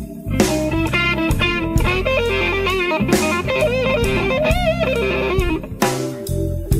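Blues music led by electric guitar over bass and drums, with wavering, bent notes about halfway through.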